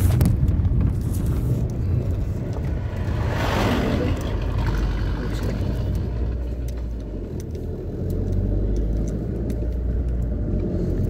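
Steady low engine rumble of a motor vehicle, with another vehicle passing close by, swelling and fading about three and a half seconds in.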